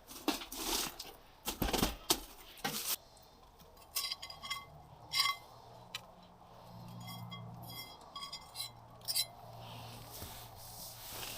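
Camp cookware and utensils being handled: rustling and knocks, then from about four seconds in a run of light metal clinks that ring briefly. A faint low hum sits underneath in the second half.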